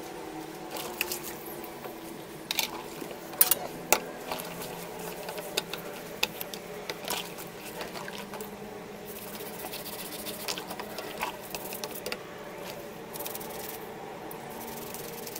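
Hands scrubbing the metal rods of a TV antenna in soapy water in a plastic bucket: steel wool and a brush scraping on the rods, with squelching and splashing of the suds. A few sharp clicks of metal knocking come between about two and a half and four seconds in.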